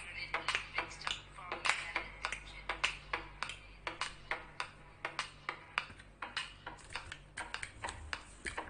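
Rapid, irregular sharp clicks and taps close to the microphone, several a second, over faint background music.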